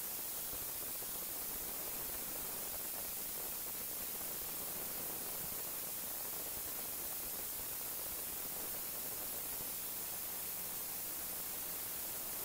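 Steady, even hiss like recording noise, with no distinct event standing out above it.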